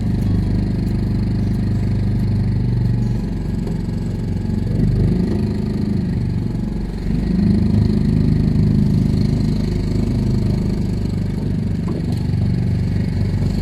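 Boat's outboard motor running steadily at low trolling speed, its pitch shifting for a few seconds midway before settling again.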